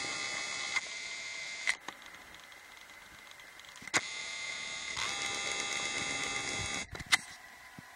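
Video camera's zoom motor whining in two short runs, one near the start and one from about five seconds in. Each run starts and stops abruptly, with sharp clicks in between.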